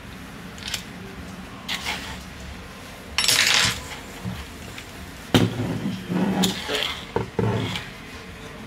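Handling noise on a workbench: a Bosch EDC17 engine control unit's finned metal case and its test-harness wires being moved about, giving scattered light clinks and knocks. There is a louder scraping rattle about three seconds in and a cluster of knocks in the second half.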